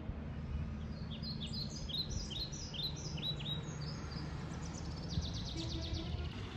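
A bird singing: a series of short, sweeping high notes, about three a second, turning about two-thirds of the way in to a faster run of rapid notes, over a steady low background rumble.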